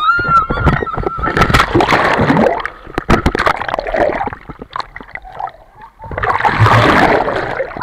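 A rider's high yell at the start, then loud churning, splashing and bubbling of seawater as the riders are thrown off an inflatable banana boat into the sea, heard through the action camera as it plunges underwater, in two bursts.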